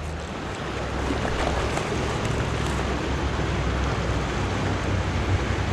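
Steady rushing of a shallow, fast river running over rocks and riffles, with a low rumble underneath.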